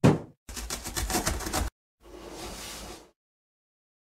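Cartoon sound effects for an animated cardboard box: a heavy thump as it lands, then a rapid rattling shake at about eight beats a second for just over a second, then a soft whoosh.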